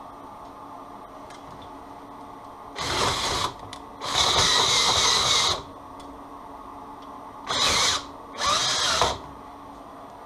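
Cordless drill spinning a homemade roller cable stripper as insulated wire is fed through. It runs in four short bursts, the second the longest at about a second and a half.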